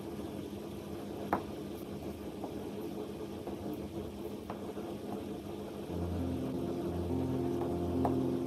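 Low, steady motor hum that grows louder about six seconds in, with a faint click just over a second in.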